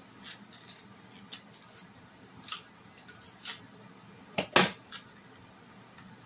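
Kitchen knife scoring and prying the skin of a green plantain: a few short scrapes and clicks spread apart, with one much louder knock about four and a half seconds in.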